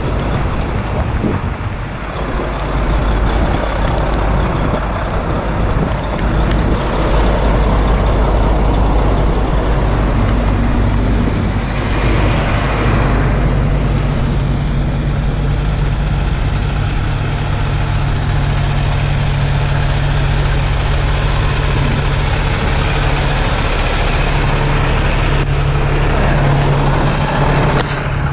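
Heavy diesel truck engine running steadily while a stuck semi tractor is pulled back through mud, its low drone growing stronger about halfway through.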